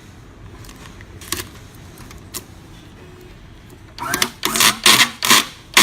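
Hands loading a roll of tape into a FUMA M-1000 automatic tape dispenser: a few sharp plastic clicks, then about four seconds in a quick run of five or six loud, harsh bursts of handling and tape noise.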